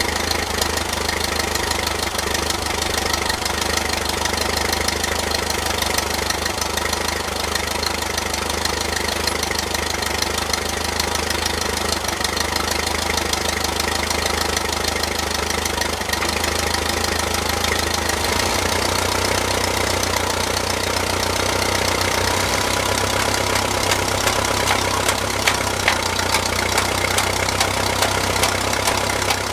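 1959 Case 300B tractor's four-cylinder gas engine running steadily; its note changes about eighteen seconds in, and a few sharp knocks come near the end.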